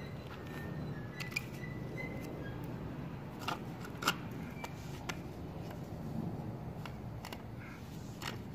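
Scattered sharp clicks and knocks of plastic wall-socket faceplates and their wires being handled as the sockets are pulled out of their wall boxes, over a steady low background noise.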